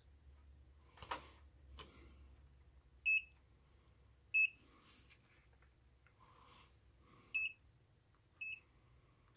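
Pen-type digital multimeter's buzzer giving four short, high beeps at uneven intervals. Two faint handling knocks come about a second in.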